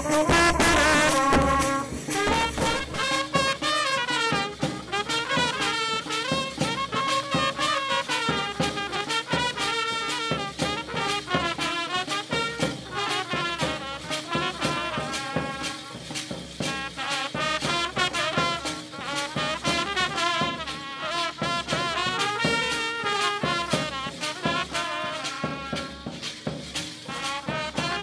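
Brass band playing: trumpets carry a melody over a steady drum beat.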